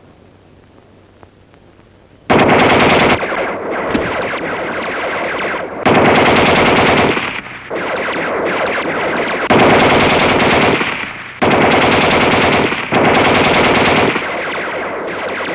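Mounted heavy machine guns firing long rapid bursts as a cartoon sound effect. The fire starts suddenly about two seconds in and goes on, surging louder several times.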